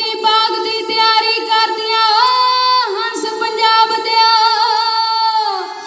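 Women singing a Punjabi folk ballad in long, held notes with a quavering ornament, the melody dipping a couple of times around the middle and tailing off near the end.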